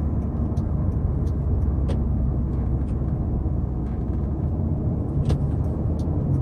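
Hyundai Sonata Brilliant being driven, heard from inside the cabin: steady low engine and road rumble, with a few faint clicks.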